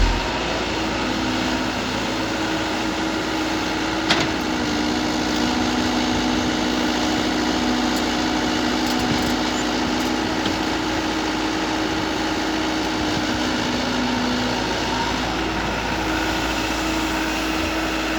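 Mini excavator engine running steadily, with a single sharp click about four seconds in.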